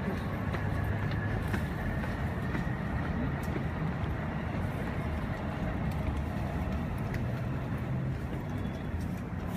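Steady road traffic noise: vehicles running with a continuous low rumble.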